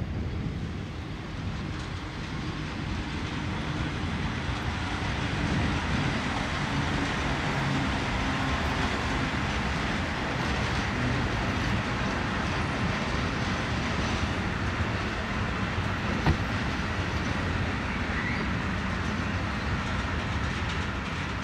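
A freight train, hauled by a red SBB electric locomotive and made up of container and tank-container wagons, passing close by with a steady rumble of wheels on rail. It grows louder over the first few seconds as the locomotive comes past, and there is one sharp knock about sixteen seconds in.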